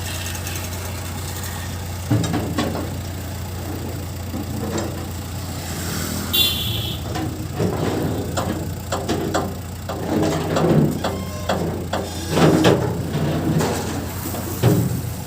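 JCB 3DX backhoe loader's diesel engine running steadily, with a run of irregular knocks and clanks from about two seconds in. A brief high-pitched squeal about six seconds in.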